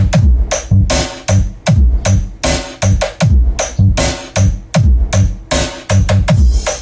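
Electronic 'battle mix' dance music played loud through a sound system of a Joson Jupiter power amplifier and two 1000-watt Live Pro speakers. A heavy kick lands about twice a second, each followed by a bass note falling in pitch.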